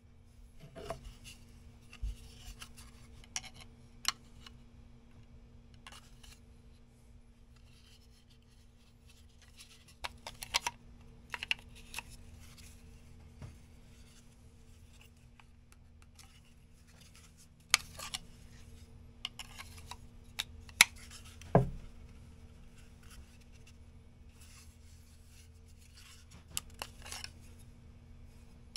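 A fixed-blade knife and its Kydex sheath being handled: scattered sharp clicks, scrapes and rubbing as the blade is drawn and reseated in the sheath. About three-quarters of the way through there is one louder knock, and a faint steady hum runs underneath.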